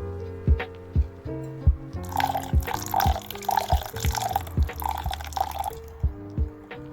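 Background music with a steady beat, about two beats a second. Partway through, a hissing noise comes in for about four seconds and then stops.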